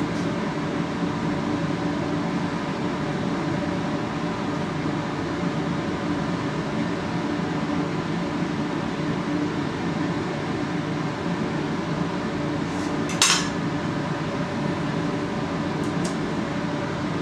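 A kitchen knife's tip tapping on a glass cutting mat while cutting pie dough: one sharp tap about three-quarters of the way in and two fainter ticks near the end, over a steady room hum.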